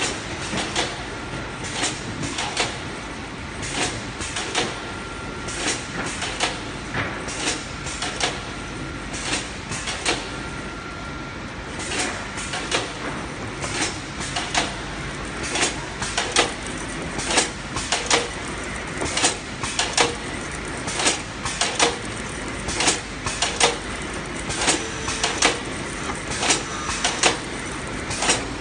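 Tape-factory machinery running: steady machine noise with repeated sharp clacks, about one or two a second, from the production and plastic-film wrapping machines.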